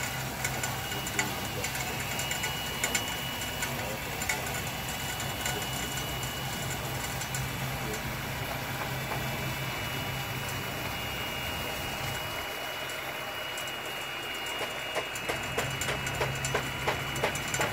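Radio-controlled Liebherr 576 model wheel loader at work, its motors running with a steady low hum and a thin whine. Near the end comes a flurry of small clicks and rattles as the raised bucket over the tipper trailer tips its load.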